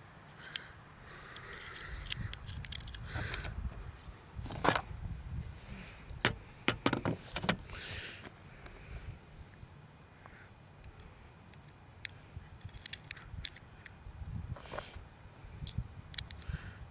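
Sharp little clicks and taps of .22 cartridges and the rifle's detachable clip being handled, as the clip is loaded. The clicks come singly and in quick clusters, over a low rumble of handling noise.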